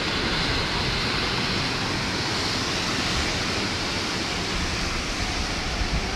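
Ocean surf: waves breaking and washing in, a steady rushing noise.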